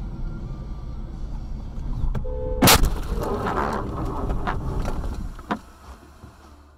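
A car collision heard through a dashcam: one loud crash about two and a half seconds in, just after a brief tone, then scattered knocks and clatters for a couple of seconds as the car and camera are jolted.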